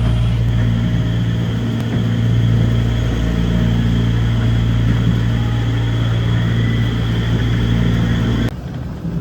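Engine drone of a miniature amusement-park train running steadily, a strong low hum. It stops abruptly near the end.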